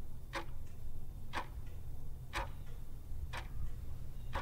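A clock ticking once a second over a low hum.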